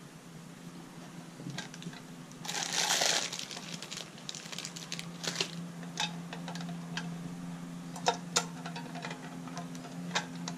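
Handling noise from a rock tumbler: scattered clicks and knocks as its rubber barrel is set down and the plastic-and-metal base is turned over by hand, with a louder rustling scrape lasting about a second near the start. A faint steady low hum runs underneath.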